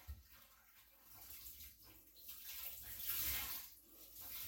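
Water splashing and trickling in a sink of wash water, faint, swelling to its loudest about three seconds in.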